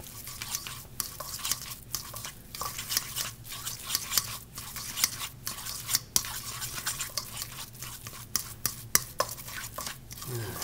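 A fork scraping and clicking against a stainless steel mixing bowl in quick, irregular strokes as it stirs and mashes a thick egg-yolk and pesto filling.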